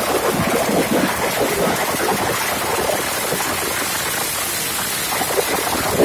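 Firecrackers packed inside a burning giant effigy going off in a dense, continuous crackle.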